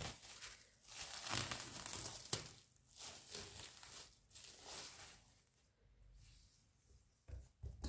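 Plastic cling film crinkling and rustling as it is peeled off a bowl of risen bread dough, in several pulls with a sharp crackle about two and a half seconds in. It then goes quieter, with two short low thumps near the end.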